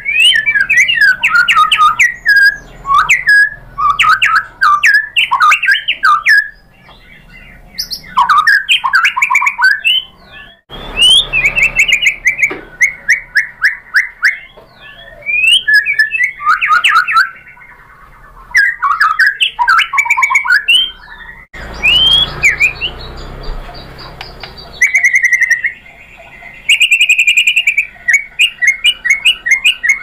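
White-rumped shama (murai batu) singing loudly: fast, varied whistled phrases broken by short pauses. Near the end come runs of quick, evenly repeated notes.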